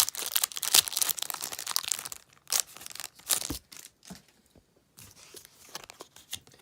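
Foil wrapper of a Pokémon booster pack being torn open and crinkled for about two seconds, then a few separate sharp crackles and light rustling as the pack is handled.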